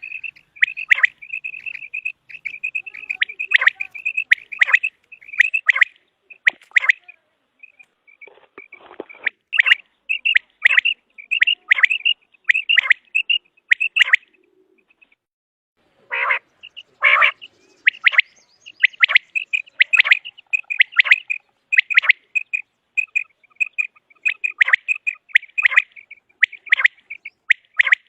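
Common quail calling: runs of short, sharp notes repeated over and over, with a pause of about two seconds around the middle.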